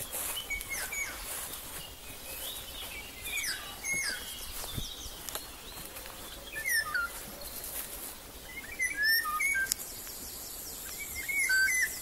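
Several songbirds calling and singing in a dawn chorus: scattered short whistles, chirps and sliding notes, one after another, with no steady rhythm.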